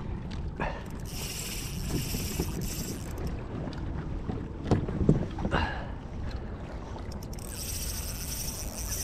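Spinning reel whirring as line is wound in against a hooked fish on a bent rod, in two spells: about a second in, and again near the end. Wind and water noise run underneath, with a few short knocks around the middle.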